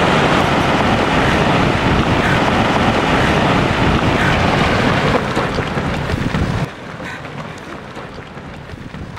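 Rockfall from a mountain face onto a glacier: a loud, steady rushing rumble of rock coming down, which drops off suddenly about six and a half seconds in to a quieter clatter of small stones still falling.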